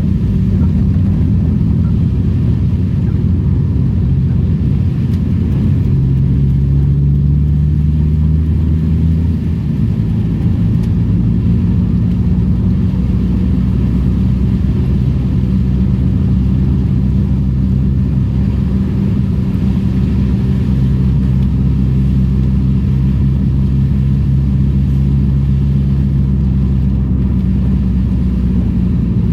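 Old Daihatsu Charade engine running steadily while the car is driven. The engine note shifts about six seconds in and again about nine seconds in.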